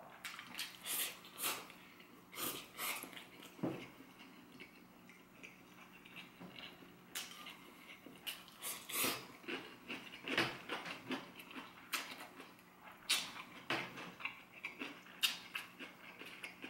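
A person chewing and lip-smacking while eating fried instant noodles, heard as irregular clusters of short clicks.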